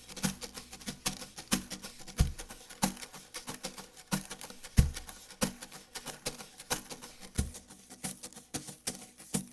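Cajon played with brushes: a quick, steady stream of crisp brush taps and swishes, with a deep bass hit about every two and a half seconds, three in all.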